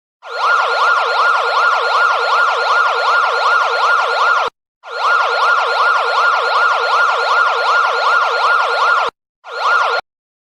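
Electronic siren in yelp mode: one tone sweeping rapidly up and down, about three or four times a second. It runs in three stretches broken by abrupt silent gaps, the last stretch lasting only about half a second.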